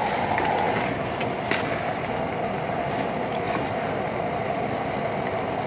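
Steady rushing hiss of a portable propane heater's burner, with a few faint clicks.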